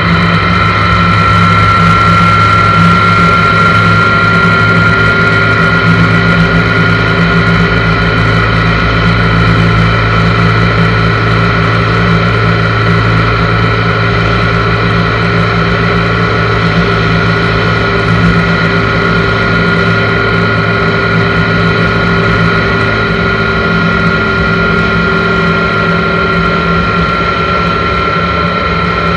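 1983 Honda GL1100 Gold Wing's flat-four engine running steadily at cruising speed, with a steady high whine over the drone, heard from a handlebar-mounted camera.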